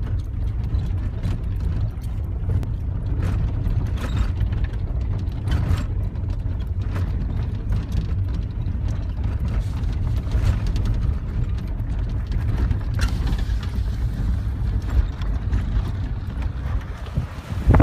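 Vehicle driving on a rough dirt road, heard from inside the cab: a steady low rumble with frequent small knocks and rattles.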